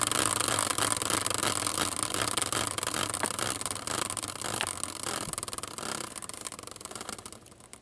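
A hand-spun prize wheel built on an upturned caster wheel, whirring on its axle as it coasts. The steady rushing whir fades gradually as the wheel slows and dies out near the end.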